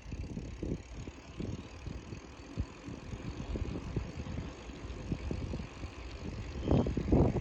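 Low, uneven rumble of wind buffeting a microphone, with irregular knocks and bumps.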